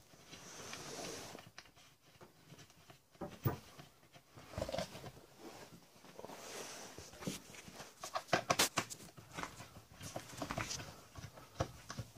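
Scattered small clicks, taps and rustles of hands fitting the mounting pieces of a Nicro solar deck vent into place, with a cluster of sharper clicks about eight to nine seconds in.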